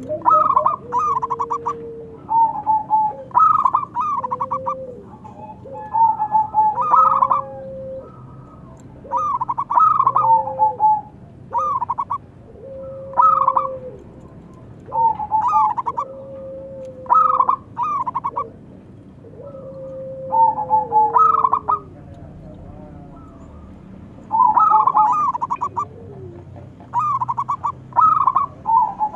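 Zebra dove (perkutut) cooing: short bursts of quick, stuttering coos repeated every second or two, with a lower, drawn-out note between many of the bursts.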